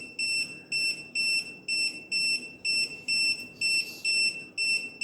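Stovematic automatic gas-knob turner sounding its warning alarm: a high electronic beep repeating about two and a half times a second, signalling that it is about to turn the stove's gas knob off.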